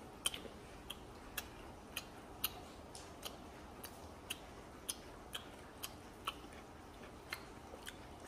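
Close-up chewing of fried stuffed tofu (tahu sumpel): faint, short, wet mouth clicks at about two a second.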